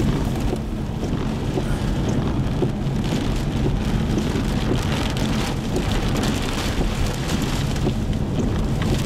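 Heavy rain hitting a moving car, heard from inside the cabin, with many small scattered drop hits over a steady low rumble of road and wind noise.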